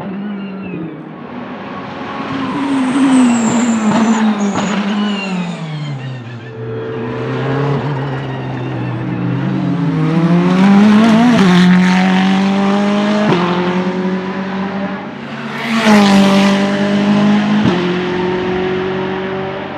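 Ferrari 488 GT3 race car's 3.9-litre twin-turbo V8 at speed: the engine note falls, then climbs under acceleration with several upshifts, the pitch dropping suddenly at each. It swells loudest as a car passes close late on.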